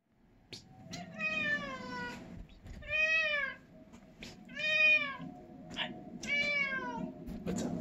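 A domestic cat meowing four times. Each meow lasts about half a second to a second and rises slightly before falling in pitch; the first is the longest.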